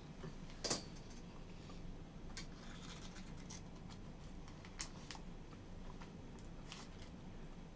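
Faint, scattered crinkles and clicks of a thin plastic snack-cake wrapper being handled, with quiet chewing.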